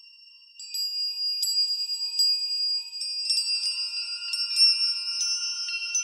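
Music of high, ringing bell-like chimes with notes struck in a steady rhythm, coming in about half a second in.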